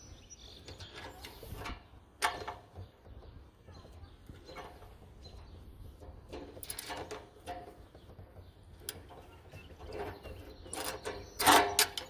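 Scattered short metal scrapes and clicks as Channellock GL10 grip-lock pliers work at a stuck nut, the loudest scrape just before the end.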